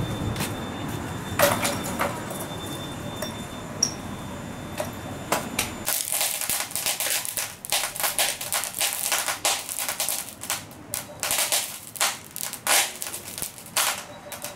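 Charcoal burning in small clay charcoal stoves, crackling with many sharp, irregular pops and snaps as sparks fly, from about six seconds in. Before that there is a low rumble of background noise with a few knocks.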